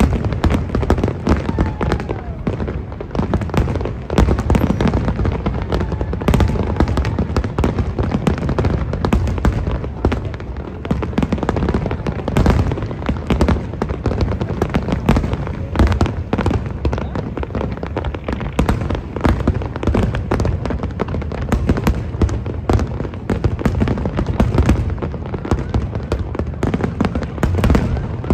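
Fireworks display going off in a rapid, unbroken barrage of bangs and crackles.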